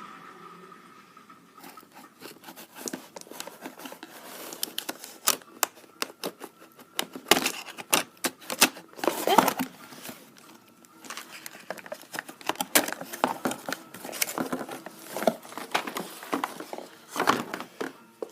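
Irregular handling noise: a run of sharp clicks, taps and knocks mixed with rustling and crinkling, as objects are handled close to the microphone.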